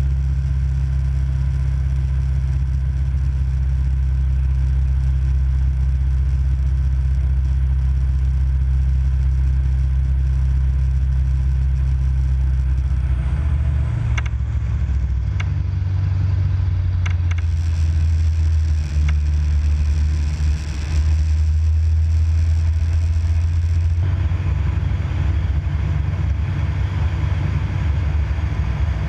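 Light aircraft's piston engine and propeller droning steadily, heard inside the cockpit. About halfway through the engine note shifts and wavers, with a few sharp clicks, and a brighter hiss joins for several seconds.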